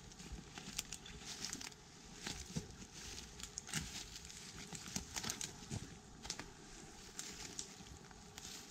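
Dry twigs and woodland leaf litter crackling and rustling, with irregular sharp snaps, as brush and debris is trodden on and handled.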